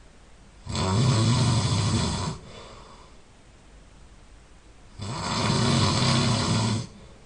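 A person snoring loudly: two long, rattling snores about four seconds apart, each lasting about a second and a half, with a softer breath after the first.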